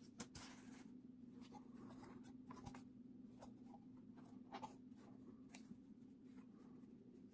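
Thin laser-cut plywood sheets handled on a table: faint sliding, rubbing and light taps of wood as they are picked up and set down, with one sharper click just after the start, over a steady low hum.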